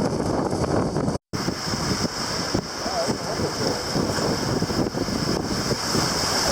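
Wind buffeting the microphone over the rush of water along a sailboat's hull while sailing, a steady noisy roar with a hiss on top. The sound drops out completely for an instant about a second in, then resumes.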